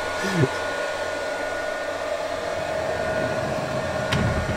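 A fan running with a steady whirring hum, with a faint click about four seconds in.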